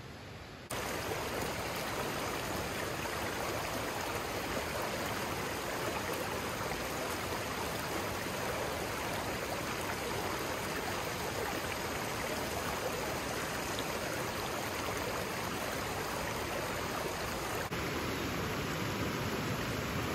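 Steady babble of spring-fed forest stream water, starting abruptly just under a second in, with a slight shift in the sound about three seconds before the end.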